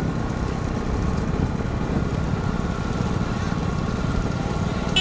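A motor engine running steadily with a fast, low, even throb.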